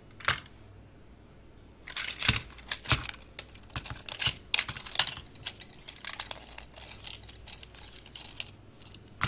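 Hard plastic parts of a Transformers Bumblebee toy clicking and snapping as it is converted by hand from car to robot. There is a single click near the start, then a busy, irregular run of small clicks from about two seconds in.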